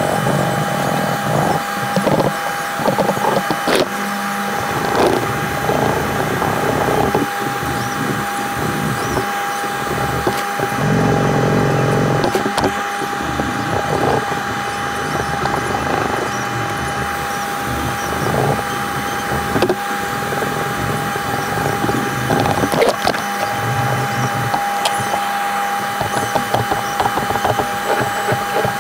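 Hand sanding of a knife handle: irregular rubbing and scraping of abrasive against the handle, with scattered light taps, over a steady hum.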